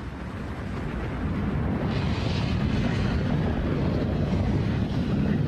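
Volcanic eruption: a lava fountain and flowing lava giving a deep, steady rumble that swells over the first second or so and then holds.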